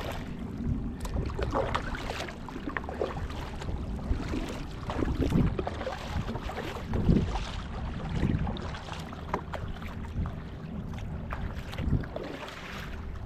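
Kayak paddle strokes splashing in the water at an irregular pace, every second or two, with wind rumbling on the microphone.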